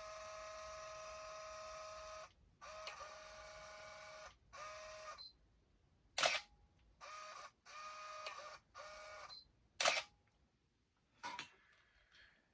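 Canon EOS-1Ds digital SLR working: spells of motor whirring, the first about three seconds long and the later ones shorter, with two sharp shutter clicks about six and ten seconds in and a smaller click near the end.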